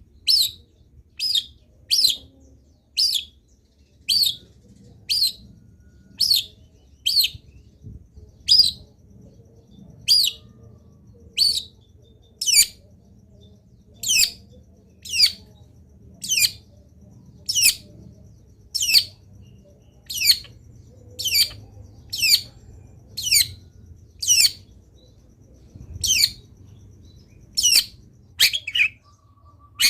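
Long-tailed shrike (cendet) calling loudly and insistently: a short, sharp note sweeping downward in pitch, repeated about once a second, with a few calls coming closer together near the end.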